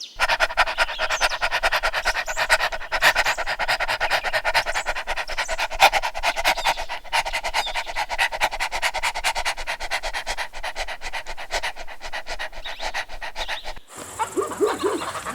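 A dog panting rapidly and steadily. Near the end the panting stops abruptly and a different sound follows.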